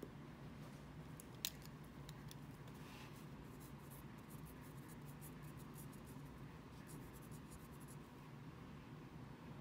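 Quiet room tone with a steady low hum, a single sharp click about a second and a half in, and a run of faint light ticks and scratches in the middle.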